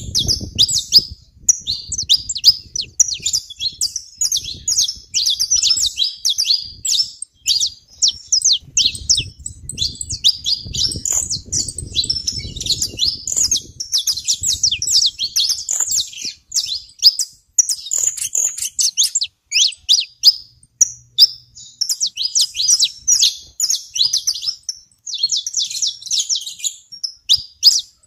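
A flock of saffron finches chirping continuously, a rapid overlapping stream of short, high-pitched chirps and twittering notes.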